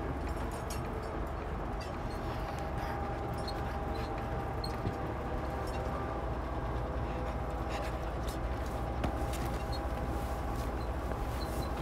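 Steady low rumble of a moving vehicle heard from inside its compartment, with scattered light clicks and rattles.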